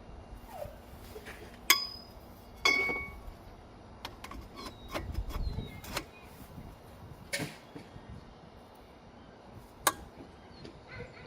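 Metal tools clinking and clanking against each other and the car while he works on a stuck lug nut: two sharp ringing metallic clinks about two seconds in, then a few more single clinks later.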